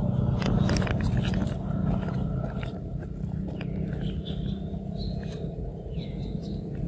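A baby macaque gives a few short high squeaks in the second half, the last one falling in pitch. Early on there are sharp rustles and clicks as it scrambles on a thin sapling. A steady low hum runs underneath.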